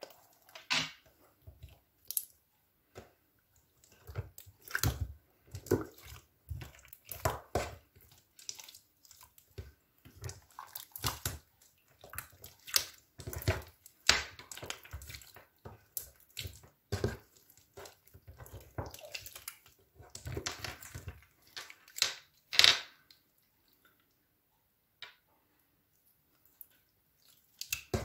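Hands squishing and kneading glossy clear slime: irregular wet squelches, clicks and small pops, then a pause of a few seconds near the end.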